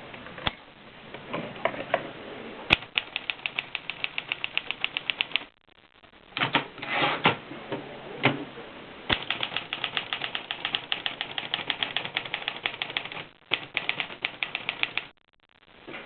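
Olivetti Lettera DL manual portable typewriter being typed on: fast runs of key strikes, about eight a second, broken by short pauses, with a few louder, rougher strokes between runs.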